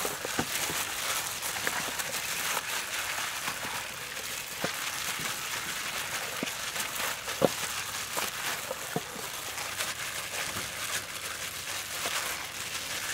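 Thin plastic food-prep gloves crinkling and raw chicken legs squelching as they are worked through a marinade in a metal bowl, with scattered small clicks and one sharper click a little past halfway.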